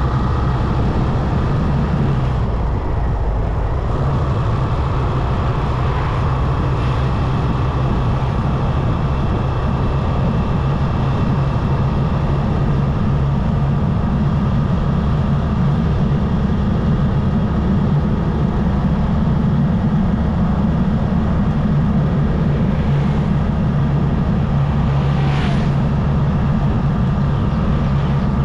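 Motorcycle engine running steadily at cruising speed, heard from on the bike, with steady road and wind noise. A brief sharp sound cuts through near the end.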